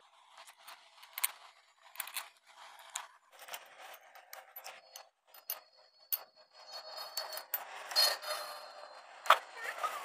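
Small metal clicks, taps and scrapes of hand tools and bolts being fitted into a motorcycle engine's side cover, irregular and light, with a sharper click about nine seconds in.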